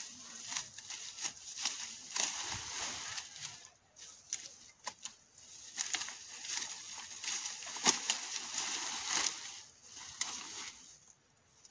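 Leafy green fodder stalks being cut by hand, rustling and snapping with irregular sharp cracks and swishes. There is a short lull about four seconds in, and the sound dies away near the end.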